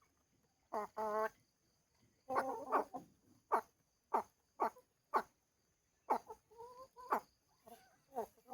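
Chickens calling: a string of short pitched calls, about two a second, mixed with a few longer drawn-out calls.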